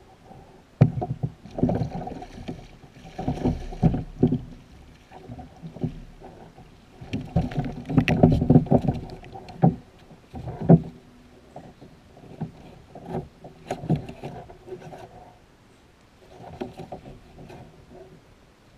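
Handling noise on a plastic kayak as a fish is landed: irregular bumps, knocks and rustling of rod, line and hands against the hull, in bursts with quieter gaps. There are sharp knocks about a second in and again near eleven seconds.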